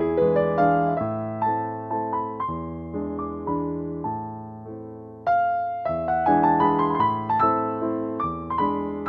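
Background piano music: a slow run of single notes and chords, each struck and fading, with a louder phrase coming in about five seconds in.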